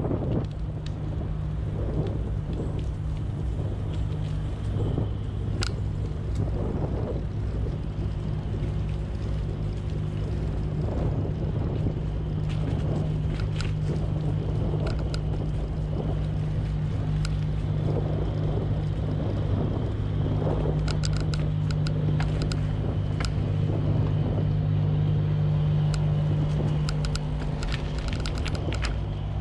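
Bicycle riding along a paved path: a steady low rumble and hum from the tyres and wind, with scattered small clicks and rattles.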